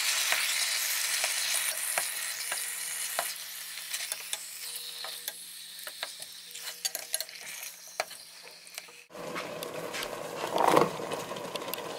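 Chicken breast sizzling as it sears in a pot, with a metal fork clicking and scraping against the pot as the pieces are turned. About nine seconds in the sound changes and a louder rustle follows as chopped onion is tipped in.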